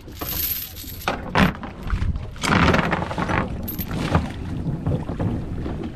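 Boat anchor tossed over the bow: a splash as it hits the water about two and a half seconds in, with the anchor line and chain knocking and running over the gunwale.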